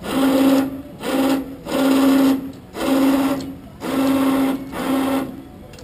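Electric power winch motor lowering a trike's wing and mast, run by remote in short bursts of under a second, about six times, before stopping near the end.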